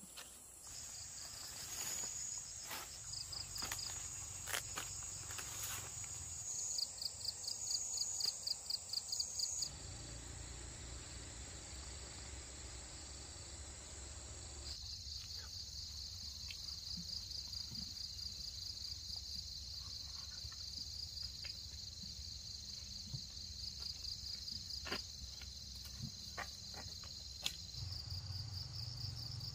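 Insects, crickets or cicadas, chirping and trilling in a high, evenly pulsing chorus. The chorus changes abruptly twice, about ten seconds in and again around fifteen seconds, and a few faint clicks come in the first few seconds.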